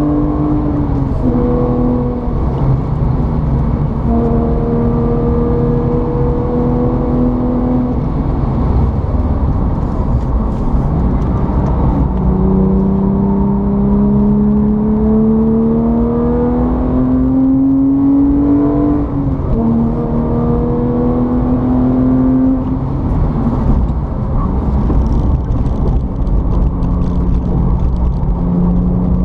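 A motor running continuously with a strong steady hum. Its pitch holds for stretches, climbs slowly for several seconds, then drops suddenly, more than once.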